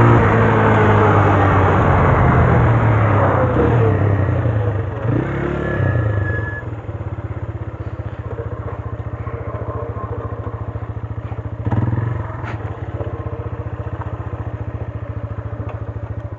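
Italika RT180 motorcycle's single-cylinder engine, loud at first with its pitch falling as the bike slows, then settling to a steady, evenly pulsing idle for the last ten seconds. The bike wears an oversized front tyre, which the owner says rubs as the wheel turns.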